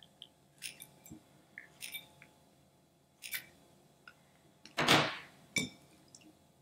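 Scissors snipping through the rubbery skin of a frog-shaped squishy stress ball: a few short, crisp snips about a second apart. About five seconds in, a louder, longer handling noise of the cut rubber as the halves are pulled apart, then one more sharp click.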